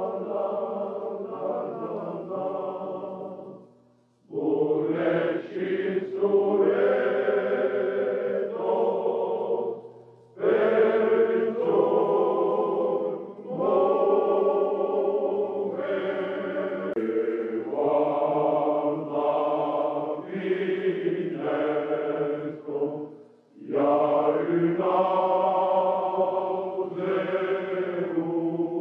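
A choir singing a traditional song from the Comminges, in the Pyrenees, in long held phrases. There are short breaks between phrases about four, ten, thirteen and twenty-three seconds in.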